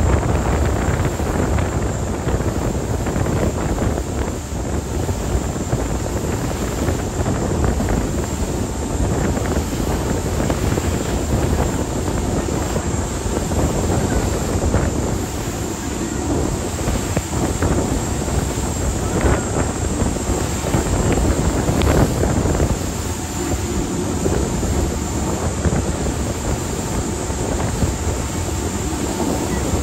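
Wind buffeting the microphone on the deck of a ferry under way, over the steady running of its engines. The noise is heavy and low, swelling and easing in gusts.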